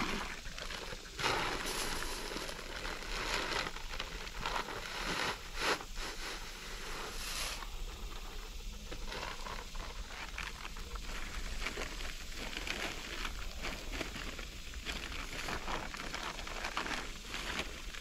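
Empty plastic corn feed sacks rustling and crinkling as they are handled and folded, with a few louder crackles in the first half.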